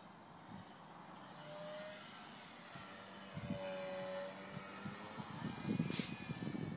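Engine of a radio-controlled Yak 54 aerobatic model plane running as it makes a low pass, growing louder about halfway through and dropping in pitch as it goes by. Wind buffets the microphone near the end.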